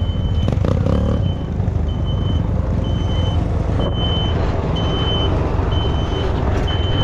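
Farm tractor's diesel engine running steadily under the rumble of the machinery, with a high electronic warning beeper sounding about once a second, in the manner of a reversing alarm.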